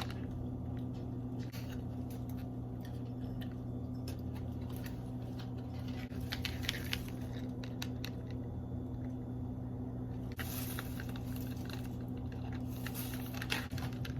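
Light scattered clicks and crinkles of packaged craft and jewelry supplies being handled, with a few busier stretches near the end, over a steady low hum.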